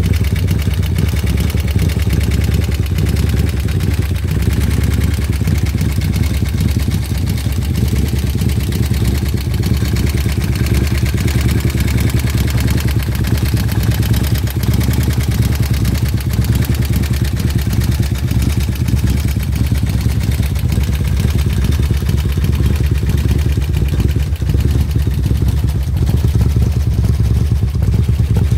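Custom Harley-Davidson bagger's Jims 131 cubic inch (2147 cc) V-twin idling steadily through its twin exhausts.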